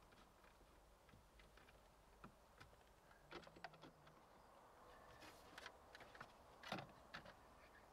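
Faint, scattered clicks and light taps of plastic wiring connectors and dashboard trim being handled, with the sharpest knock about two-thirds of the way through.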